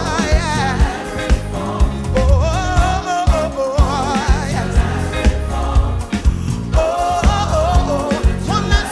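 Gospel band playing with bass and drums, a singer's melismatic vocal runs with vibrato over the top.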